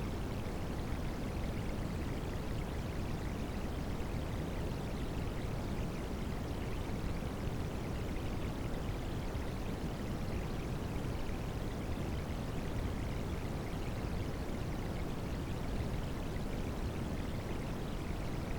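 Steady rushing water noise of rain sounds blended with white noise: a deep, even rush with no separate drops, breaks or changes.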